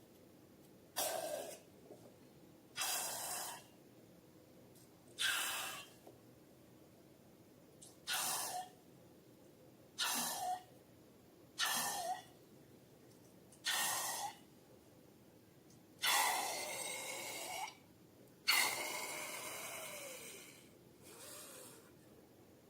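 Slime being squeezed and squished by hand in short, airy squelches about every two seconds, with two longer squelches near the end.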